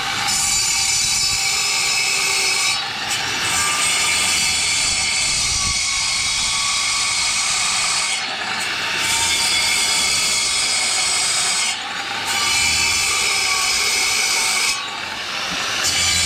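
A power tool running loud and steady, briefly easing off four times.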